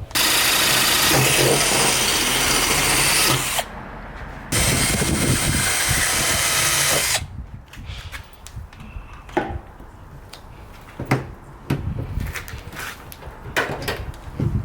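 Cordless drill boring a hole through a carbon-fibre hood, run in two bursts of about three seconds each with a short pause between. After that come light knocks and clicks of handling.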